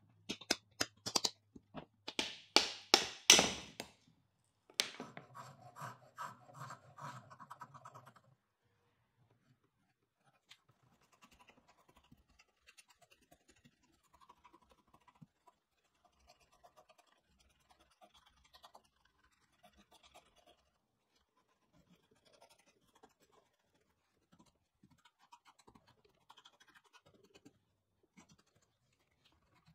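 Repeated scraping strokes, loud and quick in the first four seconds, then a few seconds of rougher scratching, then faint, scattered scratches.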